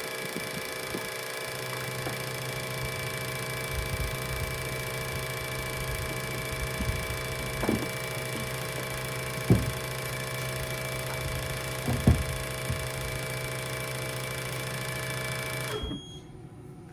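A machine running steadily with an even buzzing whir and a low hum, a few light knocks over it, then shutting off abruptly near the end.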